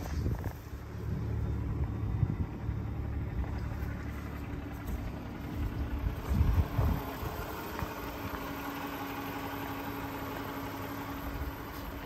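A 2008 Chrysler Town & Country's 4.0-litre V6 idling steadily.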